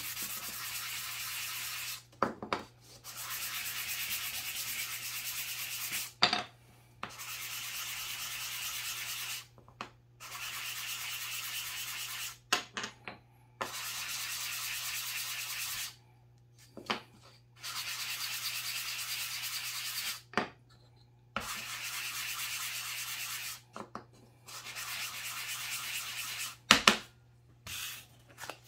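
A small wooden puzzle piece rubbed by hand back and forth on a sheet of sandpaper, softening its sharp edges: repeated stretches of steady scratchy hiss, a few seconds each. Short pauses between them hold sharp knocks of the wood on the bench, the loudest near the end.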